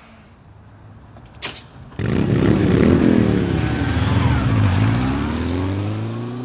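Motorcycle engine coming in suddenly about two seconds in and accelerating, its pitch rising, dropping back, then rising again as it pulls away. A single sharp click comes just before it.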